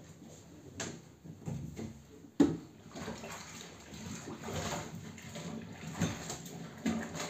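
Water sloshing while laundry is handled, with several knocks and clunks; the loudest clunk comes about two and a half seconds in.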